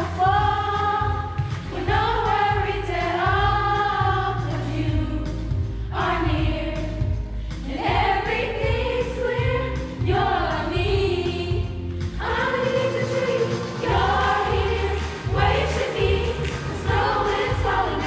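Youth choir of mostly girls' voices singing a Christmas song together over an accompaniment with a steady deep bass line.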